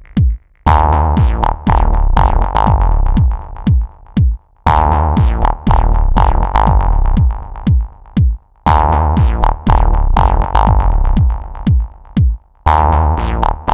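Electronic music made with a sequencer: a drum-machine beat under repeated short falling-pitch notes. It comes in phrases of about four seconds, each broken off by a brief drop-out.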